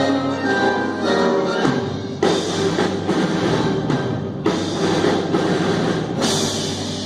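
Band music: sustained instrumental notes, then from about two seconds in a run of heavy drum and cymbal hits.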